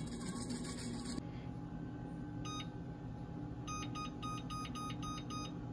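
Electric range control-panel key beeps as the temperature arrow button is pressed repeatedly to step the oven setting down from 490 toward 450. There is one beep, then a quick even run of about seven short identical beeps.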